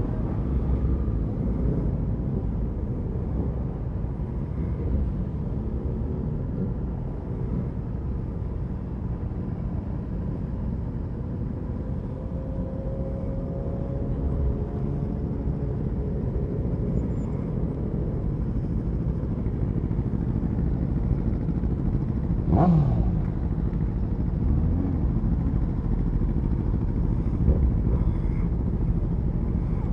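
Motorcycle riding through city traffic, heard from the bike itself: a steady engine and wind rumble, with the engines of the surrounding bikes in the group. About three quarters of the way through there is one brief, sharp, louder sound.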